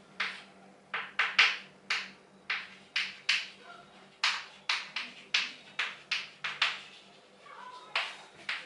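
Chalk writing on a blackboard: a run of short strokes of chalk against the board, about two to three a second, with a couple of brief pauses.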